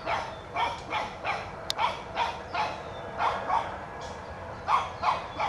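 Shih Tzu barking in a run of short yaps, about two a second, pausing for about a second near the four-second mark and then barking again; a single sharp click about a second and a half in.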